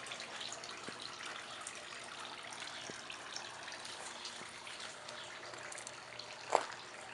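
Steady trickling of water, with one short sharp sound sliding down in pitch about six and a half seconds in.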